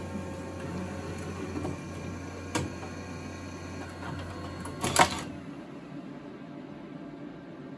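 A steady low hum with a light click about two and a half seconds in and a short sharp clatter about five seconds in. The hum then cuts out, leaving a steady hiss.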